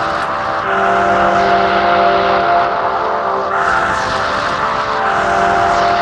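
Lo-fi electronic house music: held synth tones over a steady droning wash of noise, with no clear beat.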